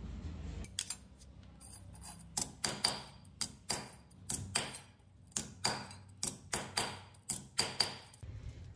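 Hammer striking a steel punch held against the clutch sprocket's steel backing plate on a vise. About twenty sharp metallic blows with a ringing tone, loosely grouped at roughly three a second.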